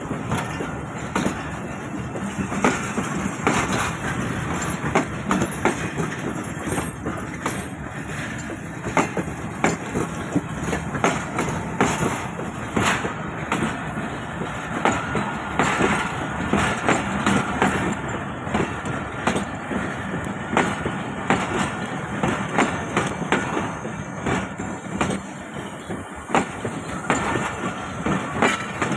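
Pakistan Railways Shalimar Express passenger coaches rolling past close by, their wheels clattering over the rail joints in a steady stream of clicks and knocks.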